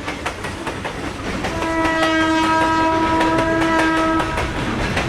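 A train running past with a steady clacking of its wheels, sounding a long multi-tone horn blast that starts about a second and a half in and stops shortly before the end.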